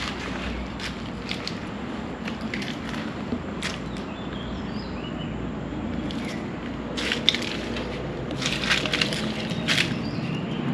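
Footsteps crunching over dry leaf litter and debris: irregular sharp crackles, coming thicker about seven to ten seconds in, over a steady background hiss.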